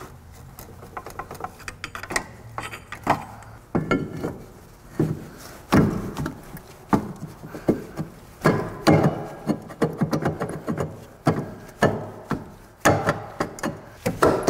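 A cast-iron rear brake rotor knocking and scraping against new parking brake shoes as it is worked by hand, failing to slide over them onto the hub, in irregular clunks. The binding is put down by the mechanic to too much friction material on the new shoes.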